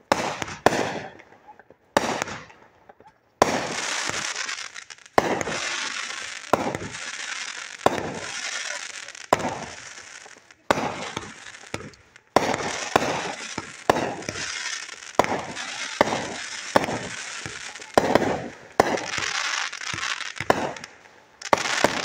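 Aerial fireworks going off: a rapid series of sharp bangs, spaced out at first, then from a few seconds in each bang followed by seconds of dense crackling that cuts off suddenly before the next.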